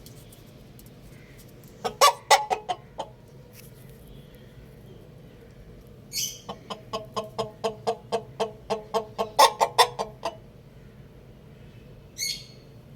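Chicken clucking: a short burst of sharp clucks about two seconds in, then a longer run of quick clucks, about three a second, that grows louder before stopping. Two brief high chirps come in between.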